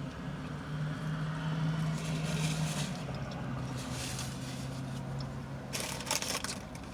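A vehicle engine hums steadily and swells a little in the first few seconds, with a few short crackling noises over it in the middle and near the end.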